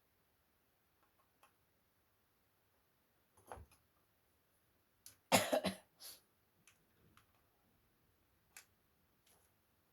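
Plastic laptop parts being handled, giving scattered light clicks and knocks, with a louder clatter about five and a half seconds in.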